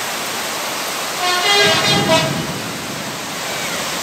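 A car horn honks about a second in, one short blast and then a second brief toot, over a steady rushing of floodwater running across the street.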